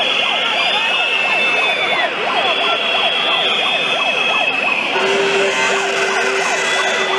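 Protest crowd noise made up of many whistles and noisemakers sounding at once: a dense din of warbling, siren-like tones. A high whistle note falls away about two seconds in, and a steady low horn note joins about five seconds in.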